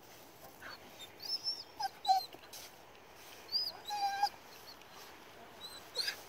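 Border collie whining and yipping in short high-pitched bursts, several times, with one longer whine about four seconds in.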